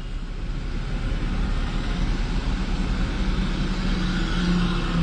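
Car running in slow traffic, heard from inside the cabin: steady engine and road rumble, with a low steady hum joining about two seconds in.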